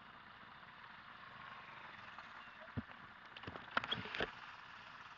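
A few sharp knocks and clicks over a faint steady hiss: one knock near the middle, then a quick cluster of clicks and knocks about a second later.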